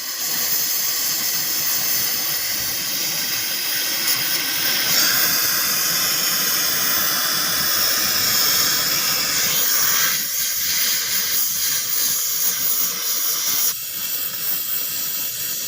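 Gas welding torch flame hissing steadily. The hiss grows fuller about five seconds in and changes character again around ten and fourteen seconds in.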